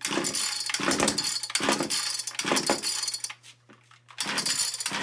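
Echo HC-2020 two-stroke hedge trimmer being pull-started: the recoil starter cord is yanked in quick succession, about one rough, rattling pull every second, then once more after a short pause, with the engine not catching.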